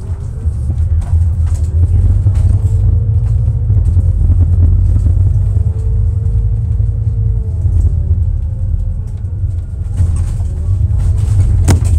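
Bus heard from inside while under way: a loud, steady low engine rumble with a whine that rises and falls several times, scattered body rattles, and a sharp click near the end.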